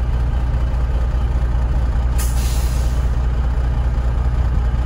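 Truck's diesel engine running steadily, with a short hiss of air about two seconds in.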